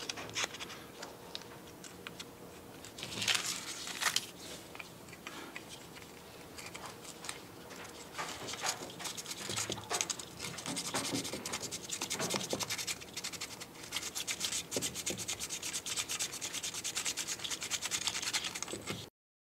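P400 sandpaper rubbed by hand over a clear 3D-printed plastic part, making a dry, scratchy sound. The strokes come in short flurries at first, with a louder patch about three seconds in. From about eight seconds on they turn into fast, steady back-and-forth scrubbing.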